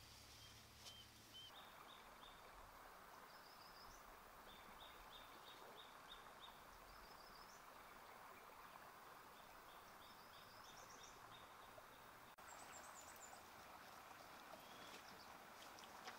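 Faint outdoor ambience with a small bird singing runs of short repeated chirps, over a soft steady hiss.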